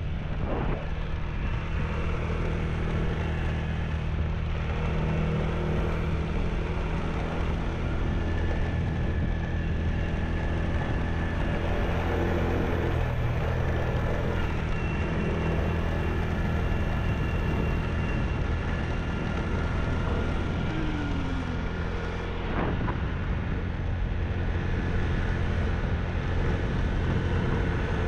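Small motorbike engine running steadily while riding along a street, with road and wind noise. There is a single knock about three-quarters of the way through.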